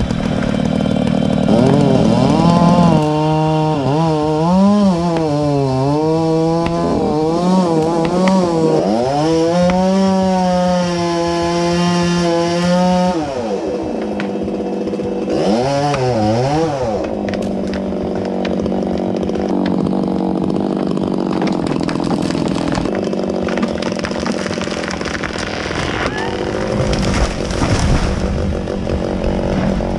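Chainsaw running, its engine pitch swinging up and down as it is revved again and again for about ten seconds. It revs again briefly a few seconds later, then runs on more steadily.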